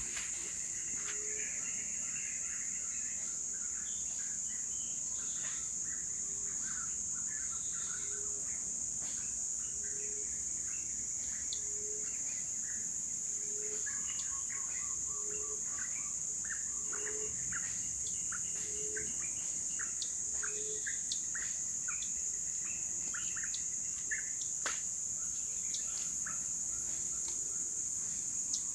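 Tropical forest ambience: a steady high-pitched drone of insects, with scattered bird chirps and a low short call repeating about every second and a half that stops about three quarters of the way through.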